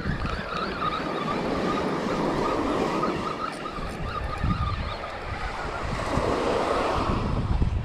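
Small waves washing onto a sandy beach, with wind rumbling on the microphone. A faint wavering whine runs through the first half.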